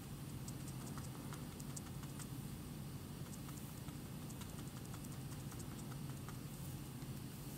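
Felt-tip marker tip dabbing dots onto paper: a quick, irregular run of faint light taps over a steady low hum.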